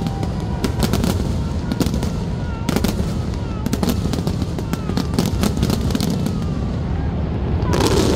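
Aerial fireworks shells bursting in rapid succession: sharp cracks and bangs over a continuous low rumble. The bangs thicken into a louder cluster near the end.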